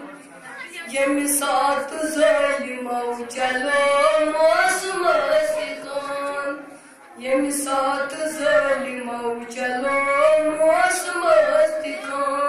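A boy's voice chanting a devotional recitation, amplified through a microphone with no instruments, in long drawn-out melodic phrases with a short breath pause about seven seconds in.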